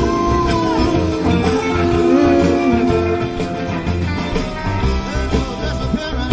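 Live rock band recording with electric guitar, loose and bouncy with a country feel.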